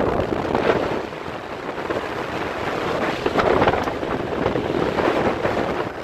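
Wind buffeting the microphone of a phone on a moving vehicle, over a steady rush of engine and road noise. The level swells and dips throughout.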